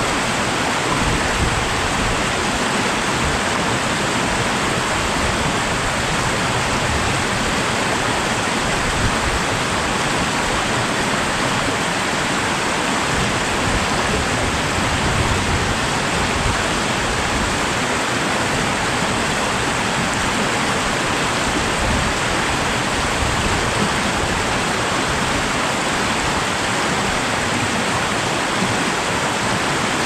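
Rain-swollen beck rushing steadily over rocks, an even, unbroken noise of fast-flowing water.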